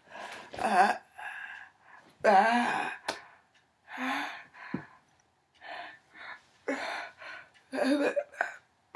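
A woman's wordless voice sounds made while she signs: breathy gasps and short voiced calls in a string of bursts with gaps between, the loudest a little past two seconds in. A sharp click about three seconds in.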